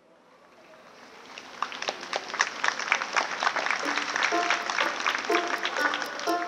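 Audience applause swelling up just after a piece of music ends. About four seconds in, short plucked notes of the next piece of music begin over it.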